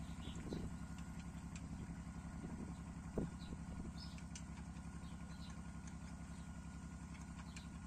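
Small mini tractor engine running steadily at low revs with an even pulse while pulling a potato digger through the soil, with a single knock about three seconds in.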